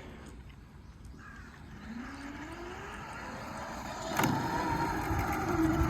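Greens mower being push-started: a knock about four seconds in as the engine is jolted over, then the engine turns and tries to fire with a steady running note.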